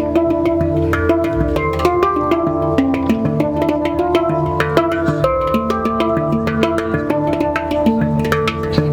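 Hang (steel handpan) played by hand: a fast run of struck notes that ring on and overlap, over a deep bass tone, with quick percussive taps between them.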